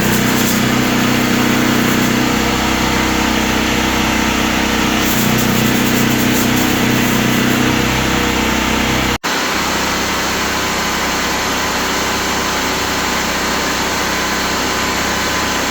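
Loud, steady machine noise, like a power tool or small engine running without a break, with a brief cut about nine seconds in.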